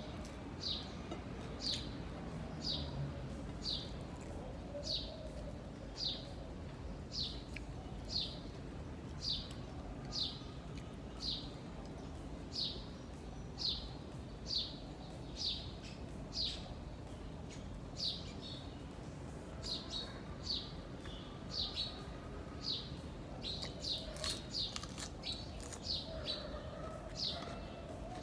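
A bird chirping over and over: one short, high, falling chirp about every second, the chirps coming faster and closer together near the end.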